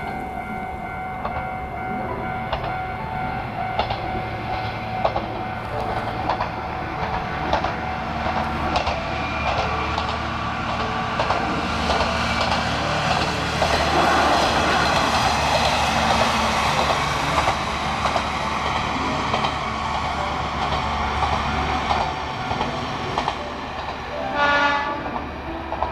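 KiHa 2400 diesel railcar approaching and passing, its engine and wheels on the rails loudest about halfway through, then fading. A short pitched horn blast sounds near the end.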